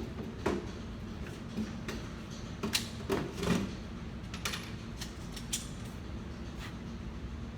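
A few sharp metallic clicks and knocks of a pistol being handled and loaded, scattered a second or so apart, over a steady low hum.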